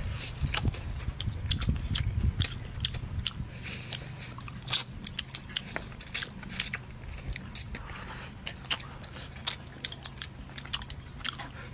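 Close-up eating sounds of a person biting and chewing braised pig's trotter, with many short wet mouth clicks and lip smacks.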